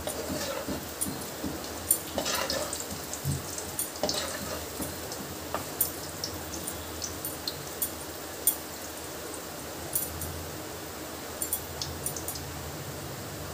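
Moong dal pakoras deep-frying in hot oil in a kadhai, a steady sizzle that swells briefly about two and four seconds in, with frequent light clinks of a metal spoon against the pan.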